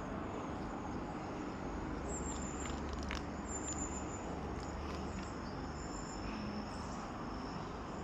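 Small birds calling in short, thin, high chirps, repeated at intervals over a steady low rumble.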